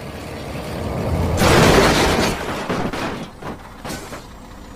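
Plastic toy vehicles being handled: a rustling clatter that swells to a loud burst about a second and a half in, then fades with a few scattered knocks and clicks.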